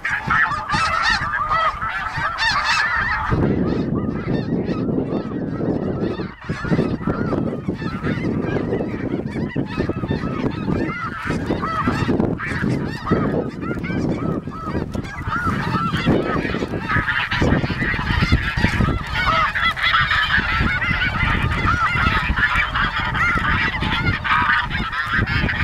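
A large flock of snow geese calling overhead: a dense chorus of many overlapping high yelping honks. Wind buffets the microphone, heavily from about three seconds in, and the calls swell again in the second half.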